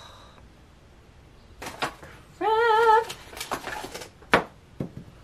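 A short vocal note with a wavering pitch, about half a second long, sliding up at its start, about two and a half seconds in. A few light taps and knocks come before and after it, the loudest a sharp knock near the end.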